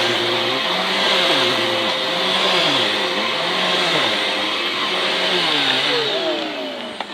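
Hoover Blaze upright vacuum cleaner running on carpet, its motor pitch dipping and rising in a steady rhythm as it is pushed back and forth. Near the end it is switched off and the motor winds down.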